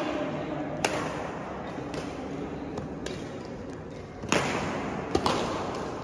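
Badminton rackets striking a shuttlecock in a rally: a series of sharp cracks at irregular intervals, the loudest a little over four seconds in, followed by two in quick succession, echoing in a large sports hall.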